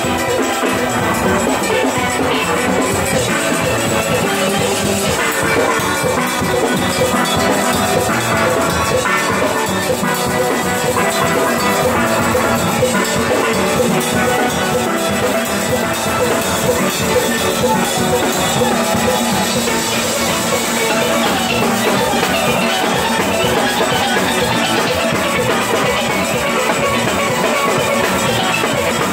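A steel band playing live: many steelpans ringing together in a dense, continuous tune over a steady percussion beat.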